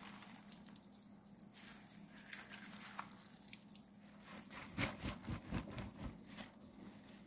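Faint squishing and dripping of salted cucumber being wrung out by hand in a cotton cheesecloth, the brine running out. A few soft handling bumps about five seconds in.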